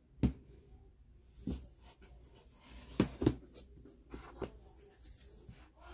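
A cardboard album package being handled on a wooden desk: several sharp taps and knocks, the loudest two close together about three seconds in, with light rustling of card and paper between them.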